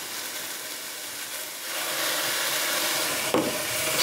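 Sliced pears frying in olive oil in a pan, a steady sizzling hiss that grows louder about a second and a half in as Grand Marnier is poured into the hot pan.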